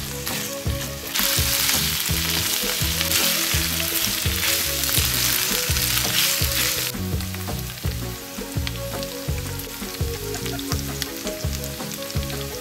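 Diced meat and chopped onion sizzling as they fry in a hot oiled nonstick frying pan, stirred and scraped with a wooden spatula. The sizzle grows louder about a second in and drops back after about seven seconds.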